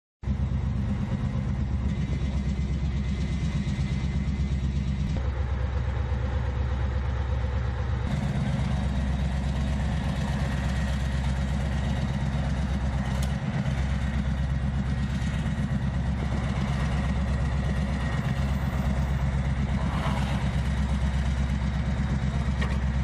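PzH 2000 self-propelled howitzer's diesel engine idling steadily.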